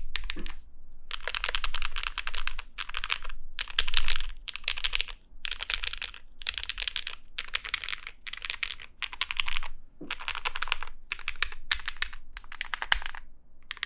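Mechanical keyboard fitted with Zaku long-pole linear switches being typed on in about a dozen quick runs of keystrokes with short pauses between. The switches have a loud bottom-out, on the deeper side.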